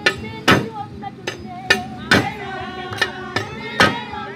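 Loud, sharp percussive strikes about twice a second in an uneven dance rhythm, with voices singing and calling between them.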